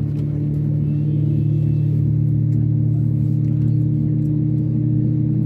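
Steady low droning hum inside the cabin of an Airbus A320neo on the ground, the constant machinery noise of the parked airliner.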